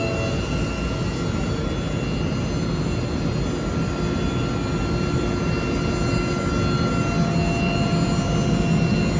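Loud, steady running noise of industrial plant-room machinery: a constant roar with several steady whining tones over it.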